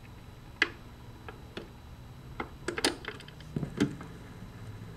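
Automatic record changer running through its change cycle: a series of mechanical clicks and clunks, bunched together past the middle, as the tone arm lifts off its rest and swings in over the record. A low steady hum runs underneath. The changer is working on freshly cleaned and regreased parts.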